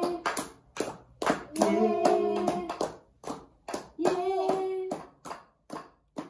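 Rhythmic hand clapping with several voices singing together, holding a long note three times.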